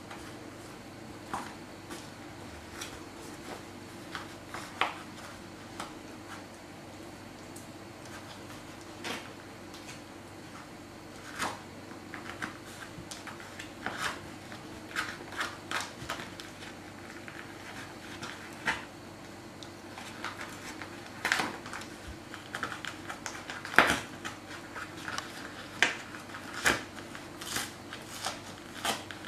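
Siberian husky tearing and chewing a toilet-paper roll: irregular crackling and ripping of paper and cardboard, sparse at first and coming more often in the second half.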